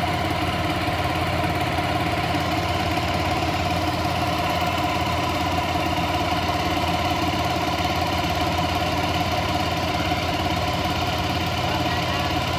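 Homemade outboard built from a small 6 hp four-stroke engine driving through a three-wheeled motorcycle gearbox, running steadily at constant speed while pushing a fibreglass boat under way.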